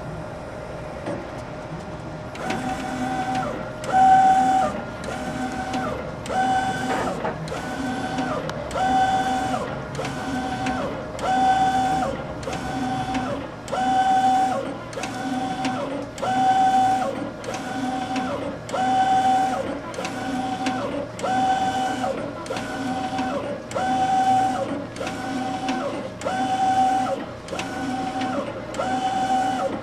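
Direct-to-garment printer printing on T-shirts. After a steady hum for about two seconds, the print-head carriage starts sweeping back and forth, each pass a motor whine that starts and stops, about one pass every three-quarters of a second.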